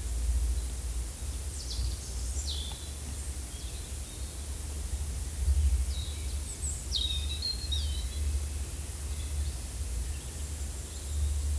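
Forest ambience: scattered short bird chirps with quick falling notes, in two clusters, over a steady low rumble and a faint hiss.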